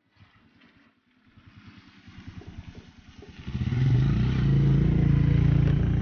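A small motorcycle approaches and passes close by. Its engine's rapid firing grows louder over the first few seconds, then runs loud and steady.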